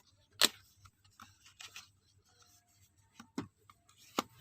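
Items being handled while unpacking: a sharp click or knock about half a second in, faint rustling and small taps, then two more clicks near the end.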